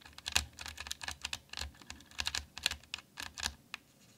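Clicky blue mechanical keyboard switches pressed over and over in a fast, irregular run of sharp clicks, the switches being lubed with Nivea hand cream to take away their crackle.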